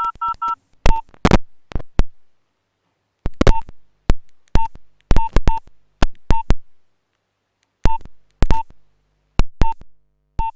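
Nokia 1112 keypad beeps, taken straight from the phone's earphone output: a string of short single beeps, each with a sharp click, at irregular spacing as keys are pressed, with a quick run of four two-note beeps at the start.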